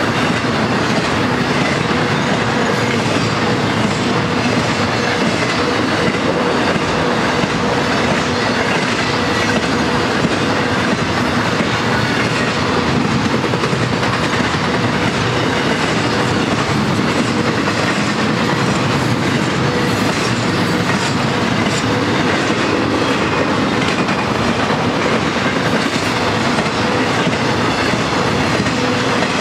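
BNSF intermodal freight train's trailer and container cars rolling steadily past, steel wheels running on the rails, with a faint steady tone underneath.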